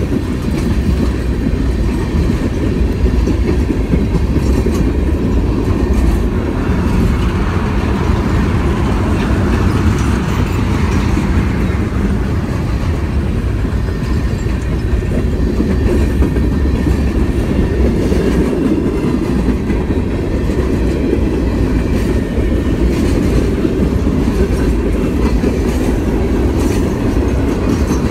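Freight train of tank cars and open hopper cars rolling past close by: steel wheels clicking over the rail joints in a steady clickety-clack over a continuous rumble.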